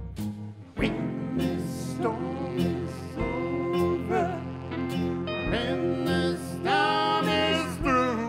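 Live band music: acoustic guitar and band playing a passage with a lead line that bends in pitch, over a low beat that lands about every two and a half seconds.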